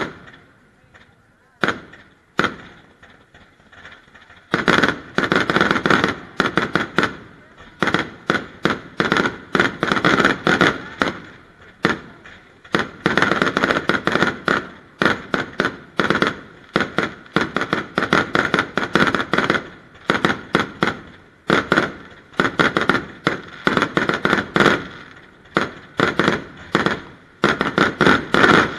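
Fireworks going off: sharp bangs from bursting shells, a few scattered ones at first, then a dense barrage of several bangs a second from about four seconds in.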